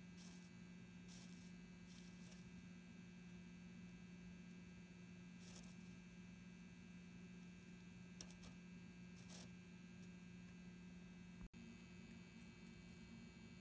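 Near silence: room tone with a low steady electrical hum and a few faint, brief rustles. The sound cuts out for a moment about eleven seconds in.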